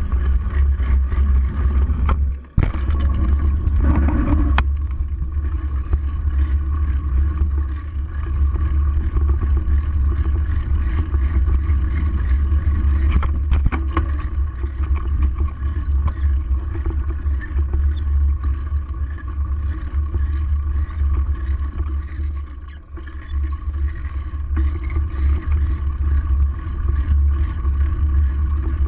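Steady wind buffeting and rolling rumble on a handlebar-mounted camera as a bicycle rides over a dirt trail, with a few knocks from bumps along the way.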